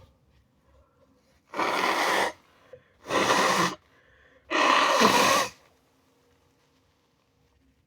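A person's induced sneezes, three in a row, each a loud rush of breath lasting under a second, about a second and a half apart.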